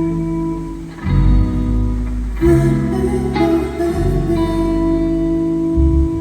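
Band music led by guitar over a bass line, sustained chords changing about every second and a half.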